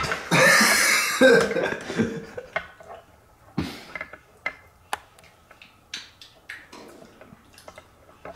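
A person coughing and gagging in one loud, breathy burst near the start, a reaction to the fishy smell of shredded squid, followed by scattered small clicks.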